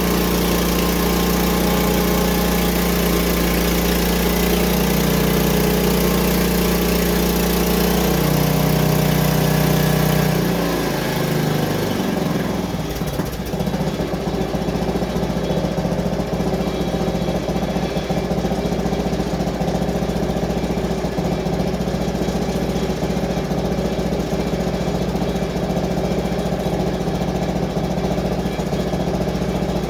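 Small gasoline engine of a portable band sawmill running at high speed, then throttled down about ten seconds in and settling to a steady idle.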